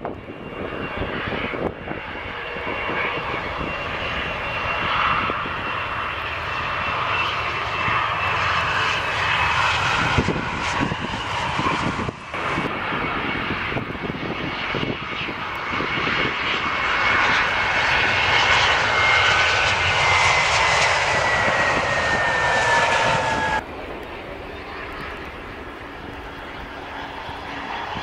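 Jet airliners landing one after another: an Embraer regional jet, then an Airbus A320-family airliner, then a Dornier 328JET. Their turbofans run at approach power with a steady roar and a high whine that slowly falls in pitch as each passes. The sound changes abruptly about 12 and 24 seconds in, and is loudest just before the second change.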